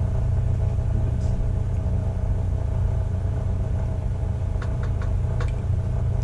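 Steady low background hum, with a few light clicks and taps near the end as a plastic hot sauce bottle is handled.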